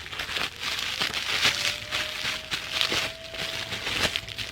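Rustling and crinkling of jewelry packaging being handled and unwrapped by hand, with a few small clicks.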